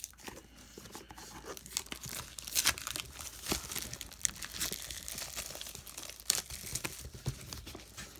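Plastic wrapping being torn and crinkled off a trading card box as it is opened, a run of irregular crackles and rustles.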